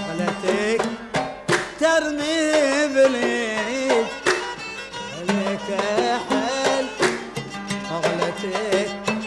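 Traditional Gulf Arab ensemble playing: plucked oud with bowed violin and qanun, the melody bending and sliding in pitch over repeated plucked strokes.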